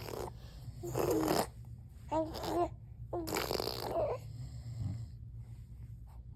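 A baby fake-coughing: three short, forced coughs about a second apart, each with a bit of voice in it.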